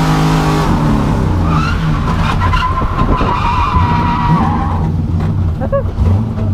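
LS V8 engine of a BMW E36 drift car held at steady high revs, then changing pitch as the tyres break loose into a long, steady tyre squeal through a drift, with a few short chirps near the end.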